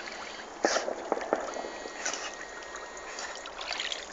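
Water sloshing and trickling around a dog paddling through a river, with a few sudden sharp sounds about a second in.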